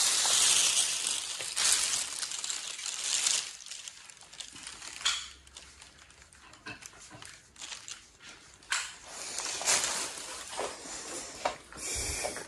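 A hiss over the first three seconds or so, then scattered light clicks and knocks of dishes and cutlery handled on a table.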